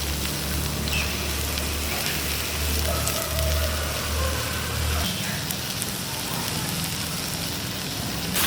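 Fish sizzling as it fries on a hot stone over a fire, a steady crackling hiss. A low hum underneath stops about five seconds in.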